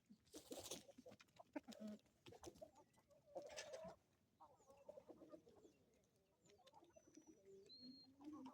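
Chickens clucking quietly in short low calls, with scattered sharp clicks and a couple of brief high chirps near the end.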